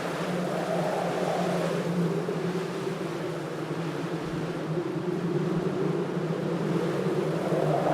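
Wind sound effect: wind blowing over a steady low hum, its whistle sinking in pitch over the first few seconds and rising again near the end.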